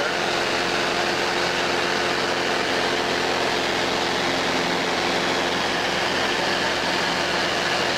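Light aircraft's engine and propeller running steadily, heard from inside the cabin in flight: an even, loud drone with a constant pitch.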